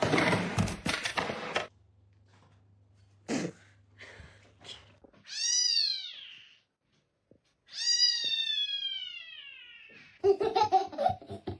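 A cat meowing twice: a short call that rises and falls about five seconds in, then a longer call that starts high and slowly falls in pitch.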